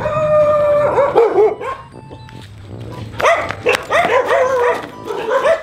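Dog barking and yelping in a run of short, rising-and-falling calls, loudest from about three seconds in.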